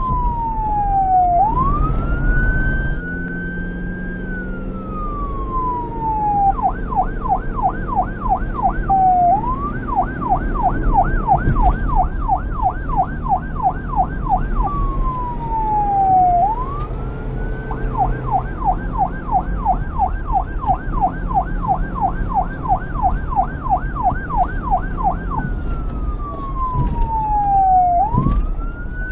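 Police car siren switching back and forth between a wail, a slow fall in pitch followed by a quick sweep back up, and a rapid yelp of about three sweeps a second. A low rumble runs underneath.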